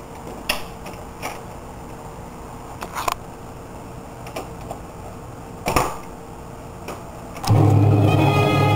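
Scattered mechanical clicks and knocks from a hand working a vintage console record player's turntable and tonearm, over a faint steady hum. Near the end, guitar-led music starts loudly.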